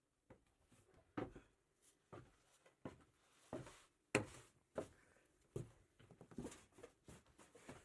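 Faint, irregular clicks and knocks in a small room, roughly one every half second to second, the loudest a little after four seconds in.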